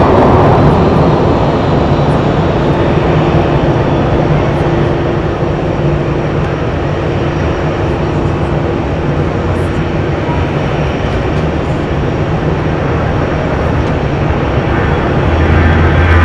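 Jet airliner engine noise, loud and steady, easing a little midway and building again near the end.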